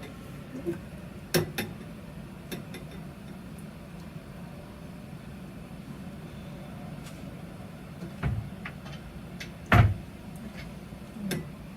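Kitchen clatter: a handful of short, sharp knocks and clunks, the loudest nearly ten seconds in, over a steady low hum.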